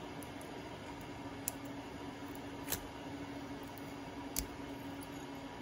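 Three short, sharp snaps as needle-nose pliers break support material off a 3D-printed plastic part, over a steady low hum.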